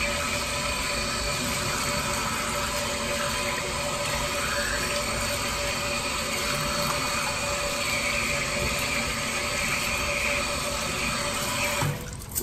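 Water running steadily from a bathroom sink tap onto hands being rubbed and rinsed under the stream. The sound cuts off near the end.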